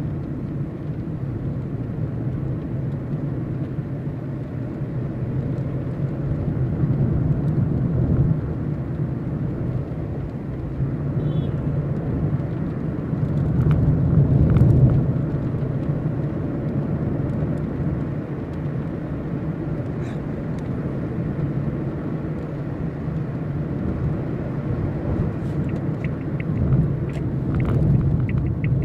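Steady low rumble of a car's engine and tyres on a wet road, heard from inside the cabin while driving, swelling a little about halfway through. A light, regular ticking comes in near the end.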